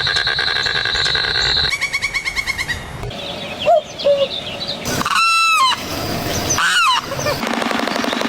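A quick succession of different animal calls, the loudest being two strong honking bird calls about five and seven seconds in, each bending in pitch.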